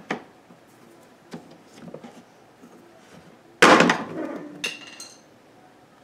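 Hard plastic clicking and knocking as the plastic drip pan under a dishwasher is forced with hands and a screwdriver. There are scattered small clicks and one loud clatter about three and a half seconds in, then a few more clicks.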